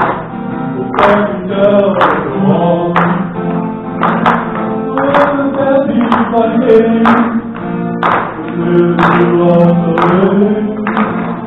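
Acoustic guitar strummed steadily, with a strong stroke about once a second, under a man's singing voice holding and sliding between long notes.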